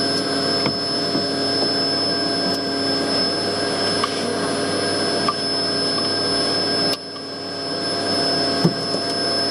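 A vacuum running steadily, used to hoover bees out of a ceiling cavity. About seven seconds in its sound drops off sharply, then builds back up over a second or two.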